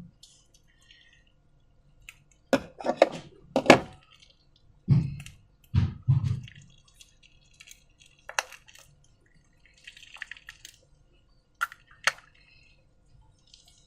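Slime-making containers and utensils being handled: a series of sharp clinks and knocks, with two duller thumps in the middle and a brief rustle-like hiss later on.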